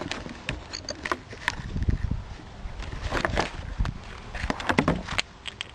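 Outdoor wind rumbling on the microphone, with many scattered small clicks and crackles and no single loud bang.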